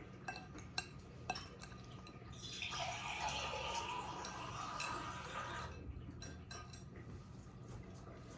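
Two light clicks, then about three seconds of liquid running or pouring, with small clinks of dishes after it.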